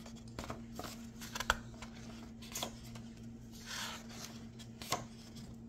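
Pages of a hardcover picture book being handled and turned: a few light taps and a soft paper rustle, over a faint steady hum.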